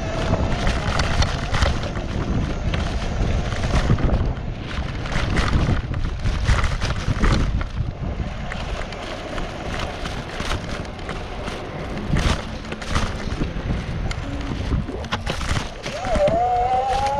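Wind buffeting the microphone and rumble from riding over brick paving, with frequent small knocks and jolts. Near the end a short whine rises in pitch.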